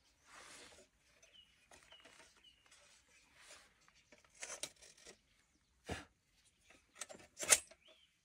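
Scattered rustling and handling noises with a few clicks, and two sharp knocks, about six and seven and a half seconds in, the second the loudest. Three short faint high chirps come about a second and a half to two and a half seconds in.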